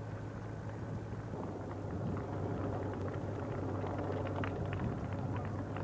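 Steady engine drone and road noise from the camera vehicle travelling at running pace in front of the leading marathon pack, with faint short taps of the runners' footsteps on the road from about a second and a half in.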